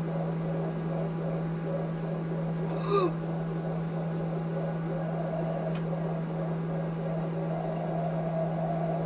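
A steady low hum, as from a fan or appliance running, under faint room noise. A brief short vocal sound comes about three seconds in.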